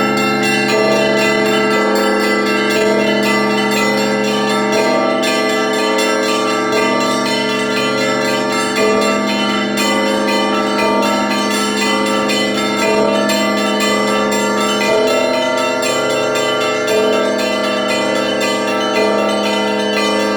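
Russian Orthodox church bells rung by one bell-ringer: a dense, continuous peal of many bells, small bells chiming rapidly over larger ones in a rhythmic pattern that repeats about every two seconds.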